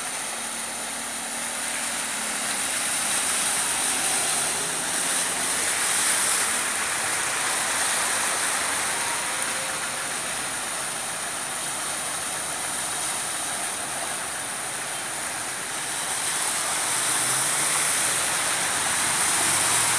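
Cars driving slowly through a flooded street: low engine hum and water swishing under the tyres over a steady hiss, growing louder a few seconds in and again near the end.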